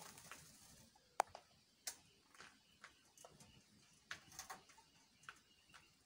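Faint, scattered clicks and taps of a parakeet moving about its wire cage by a plastic water cup, with a short soft rustle at the start; the sharpest click comes about a second in.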